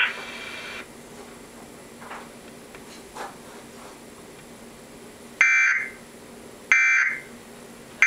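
Emergency Alert System end-of-message data bursts from a TV speaker: three short, harsh digital warbles about a second apart, starting about five seconds in, marking the end of the tornado warning alert.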